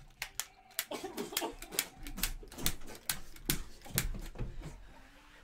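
An irregular run of sharp clicks and smacks, about a dozen over four and a half seconds, mixed with short grunting vocal noises from a staged scuffle.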